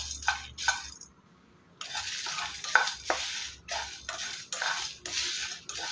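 A utensil stirring and scraping whole spices as they dry-roast in a pan: coriander seeds, cinnamon, cloves, peppercorns, cumin, fennel and dried red chillies. The strokes come quickly, about three a second, with a brief pause about a second in.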